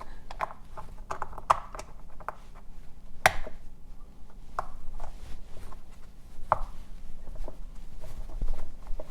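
Irregular plastic clicks and knocks as a replacement rocker switch is pressed and snapped into the plastic housing of a small air compressor, with its spring clips catching. The sharpest click comes about a third of the way in.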